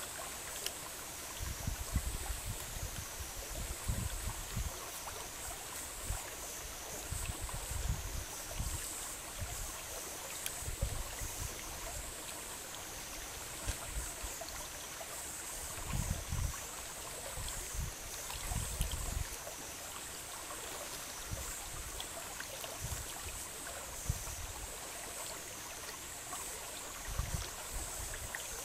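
Shallow stream flowing over rocks, a steady trickling wash of water. Above it a thin high whine wavers up and down in pitch about every second and a half, with scattered low rumbles.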